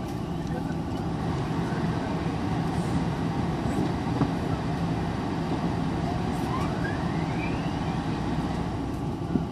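Steady cabin drone of a Boeing 777-300ER taxiing, its GE90 engines at low taxi thrust heard through the fuselage, with a faint rising whistle partway through.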